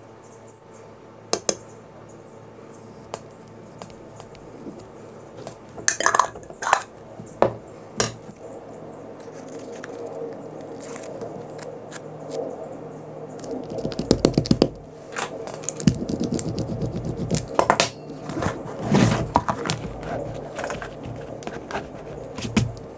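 Irregular clicks, knocks and light clinks of tools and small hard parts being handled on a leather-working bench, a few at first and busier in the second half.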